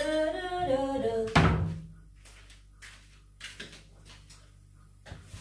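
A woman's voice making a drawn-out sound that wavers in pitch, then a single loud thunk about a second and a half in, followed by faint light clicks of handling.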